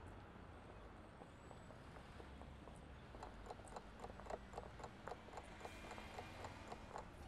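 Faint countdown-timer ticking, a clock-tick sound effect at about four ticks a second, starting about three seconds in over a faint steady background hiss.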